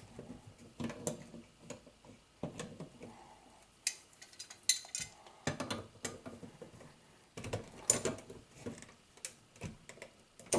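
Irregular metallic clicks, taps and short rattles as a washing machine supply hose's threaded metal coupling is turned and tightened onto its fitting.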